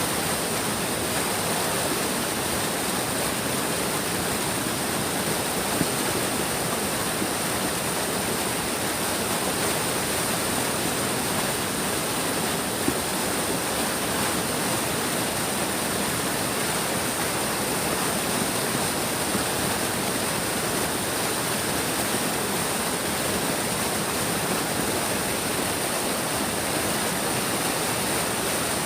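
A big stream's water flowing steadily, an even, unbroken rush of noise.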